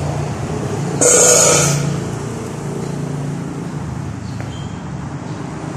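Steady low hum of a motor vehicle engine running, with a brief louder rush of noise about a second in.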